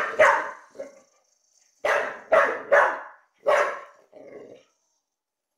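Dog barking in short, sharp barks: two quick ones at the start, then after a pause four more about half a second apart and a last, fainter one.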